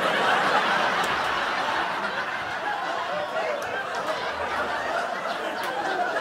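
Live theatre audience laughing hard at a punchline: a dense, sustained crowd laugh, loudest at the start and easing off a little.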